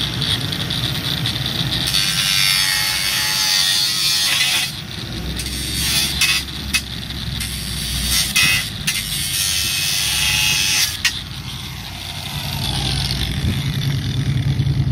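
Angle grinder cutting steel strut channel: a loud hissing grind, broken by several sharp knocks midway, then winding down with a falling whine near the end.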